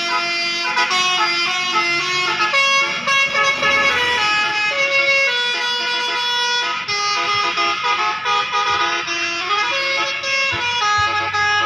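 Telolet 'basuri' bus air horn playing a tune: a continuous run of held horn notes that step from pitch to pitch.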